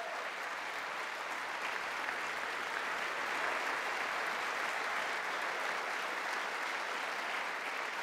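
Audience applauding steadily, a dense even clapping that eases slightly near the end.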